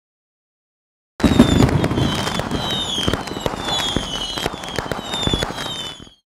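Fireworks: a dense string of crackling pops with a falling whistle about every half second. It starts abruptly about a second in and cuts off just as abruptly near the end.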